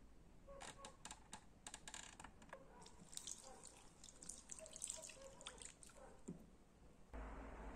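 Faint sound of liquid poured onto a metal pistol in a glass baking dish, trickling and splashing. It starts as scattered drips and splashes and becomes a denser splashing pour from about three seconds in. A steady low hum starts near the end.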